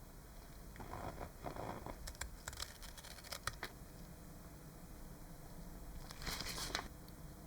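Faint rustling and scraping from handling a small model's parts, with a few light clicks and a short hiss near the end.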